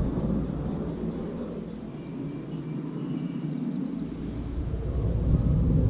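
Low outdoor rumble that eases off in the middle and swells again toward the end, with a few faint bird chirps over it.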